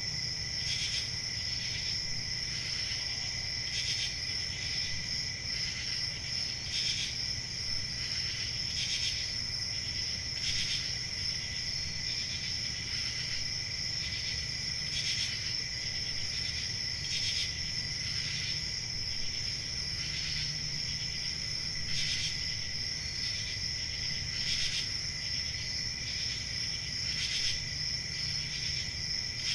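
Crickets chirping in a continuous chorus: a steady high trill with louder chirps recurring every second or two.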